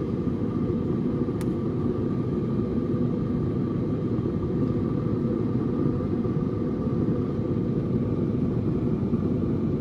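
Steady hum and rumble of a running Pit Boss Copperhead vertical pellet smoker, its combustion fan blowing, with a constant faint whine over the low noise.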